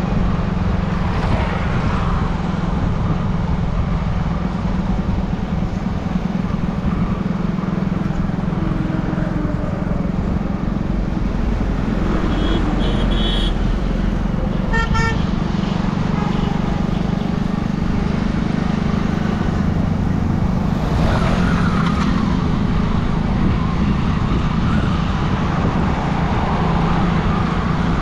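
Motorcycle engine running steadily at cruising speed, with road and wind noise. A vehicle horn toots briefly a couple of times about halfway through.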